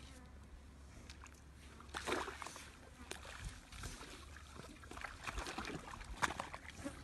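Mud and water sloshing in a shallow wallow as young rhinos shift their bodies in it, in irregular splashy bursts starting about two seconds in, over a low steady rumble.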